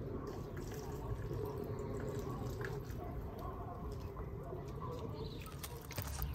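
Water poured from a plastic jug into a small plastic bowl on the ground, trickling and dripping.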